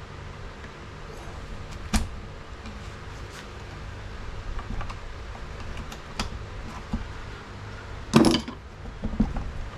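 Scattered metal clinks and knocks of hand tools working the Tecumseh engine's sump cover loose, with a sharp knock about two seconds in and a louder clatter near the end.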